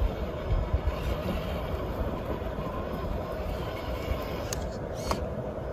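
Traxxas TRX-4 Defender RC crawler driving over rocks: a steady whir from its electric motor and gearing, with tyres grinding on stone. There are a few low thumps in the first second and two sharp clicks near the end.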